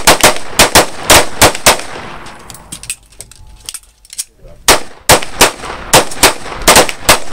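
Handguns fired by several shooters on a firing line, sharp shots coming fast and overlapping. There are two volleys with a lull of a couple of seconds between them.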